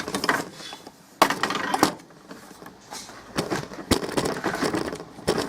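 Handling noises with small metallic clinks and knocks, and a few scraping stretches in between, from a small metal part being worked or handled at the bench; no steady drill motor is heard.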